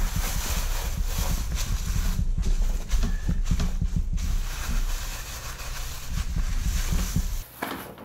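Thin plastic bag crinkling and rustling as gloved hands squeeze and smooth it around a salted cut of beef to press the air out, with dull knocks of hands and meat on the wooden board. It eases off near the end.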